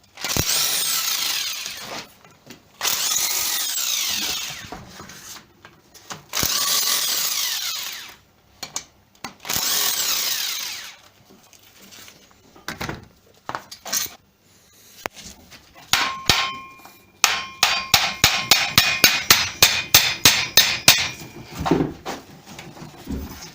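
A power tool works on a car alternator in four bursts of a couple of seconds each, falling in pitch as it winds down after each burst. Later comes a quick run of sharp clicks, several a second.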